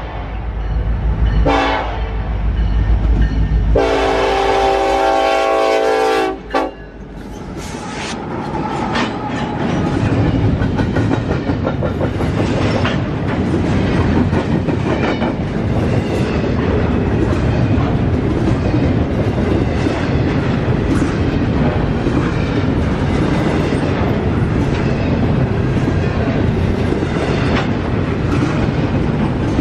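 Norfolk Southern freight train passing close by: the locomotive's air horn sounds a short blast and then a long one over the deep rumble of its diesel engine. The horn stops about six and a half seconds in, and the cars then roll past with a steady clickety-clack of wheels over the rail joints.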